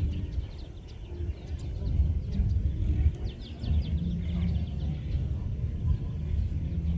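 Riverside outdoor ambience at dusk: a steady low rumble underneath, with quick bird chirps in clusters, most noticeably about three seconds in, and the faint sound of a distant social gathering.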